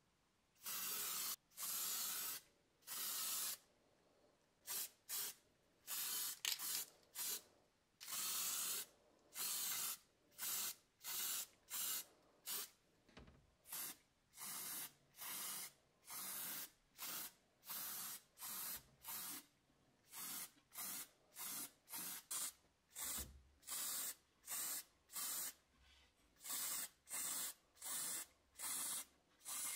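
Spray paint hissing in many short bursts as red paint is sprayed onto the steel helmet: a few longer bursts of about a second at first, then shorter ones about one or two a second.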